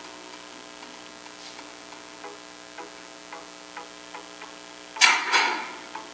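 Soft background music with a ticking beat about twice a second. About five seconds in, a loud, short blast that dies away over half a second: the AEA Zeus .58 caliber PCP air rifle firing a shot.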